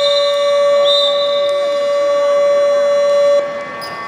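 Arena game-clock buzzer sounding one long, steady blast for the end of the basketball game, cutting off suddenly about three and a half seconds in. Two short, high whistle blasts sound over it, the second about a second in.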